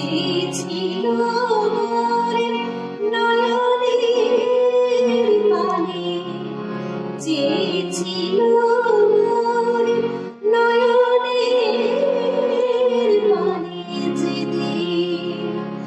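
A woman sings a slow melody into a microphone, holding long notes with vibrato, over steady instrumental backing of sustained low notes.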